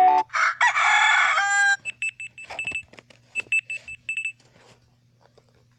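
Phone ringtones previewed through the phone's speaker. The end of a musical ringtone gives way to a loud sound lasting about a second, then two runs of short, high electronic beeps, which stop a little past the four-second mark.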